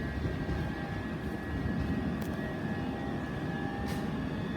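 Class 395 Javelin electric multiple unit pulling away, a steady rumble of wheels and traction with a thin high whine held over it.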